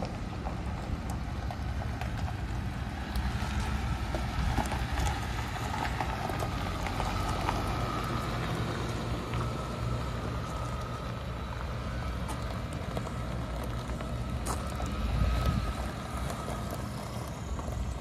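2013 Ford F-150 pickup driving slowly past on gravel: its engine running with a steady low rumble, tyres crunching over the stones with scattered sharp pops.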